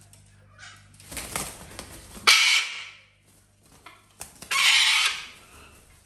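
Wings flapping, then two harsh parrot screeches about two seconds apart.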